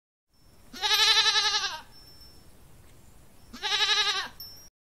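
An animal bleating twice, as a sheep or goat does. Each bleat is a quavering call about a second long, and the second is a little shorter.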